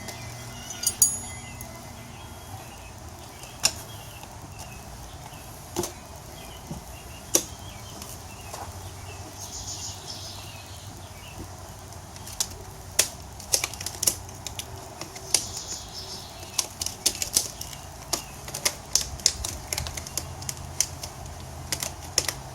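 Metal tire-mounting tools clicking and knocking against a motorcycle wheel rim as the second bead of a new rear tire is levered on by hand. The clicks are scattered at first and come thick and fast in the second half, with brief scraping in between.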